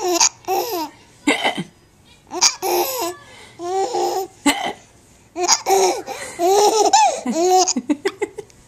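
A young child laughing in repeated bouts, high-pitched and breathy, with a few short sharp hiccups cutting in between the bouts.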